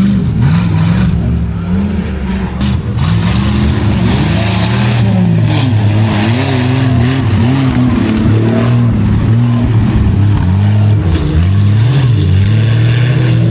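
Off-road 4x4's engine revving up and down again and again as it drives a rough dirt course, over a steady lower engine hum.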